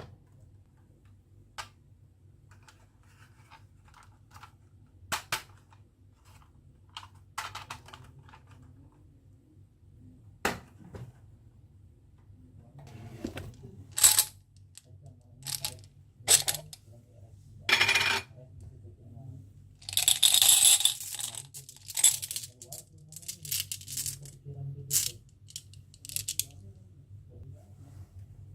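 Marbles clicking and clattering down a marble run. Scattered single clicks at first, then a busier run of clacks from about halfway, with a longer rattle about two-thirds of the way in.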